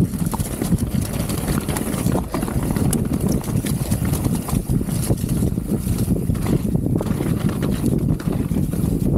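Nukeproof Mega mountain bike rattling and rumbling at speed down a rough, wet trail of mud and loose stone, with tyre noise and scattered knocks from the bike.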